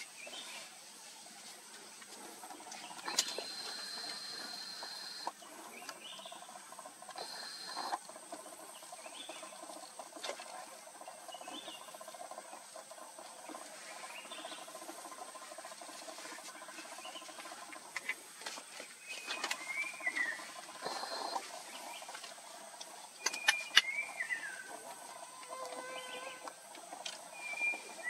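Forest ambience: scattered short bird chirps and down-slurred call notes, louder and more frequent in the second half, over a steady high-pitched whine and a soft background hiss, with a few sharp clicks.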